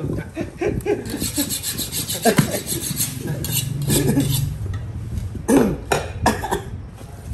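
Butcher's knife scraping and slicing meat off a rack of ribs on a wooden chopping block, in quick repeated rasping strokes.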